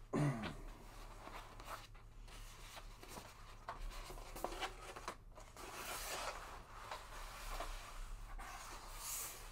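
Large sheet of poster paper rustling and crackling as it is handled, curled and rolled, with scattered small crinkles throughout. A brief low vocal sound is heard at the very start.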